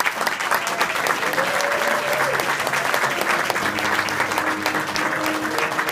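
Audience clapping. About three seconds in, steady instrumental music notes begin under the applause.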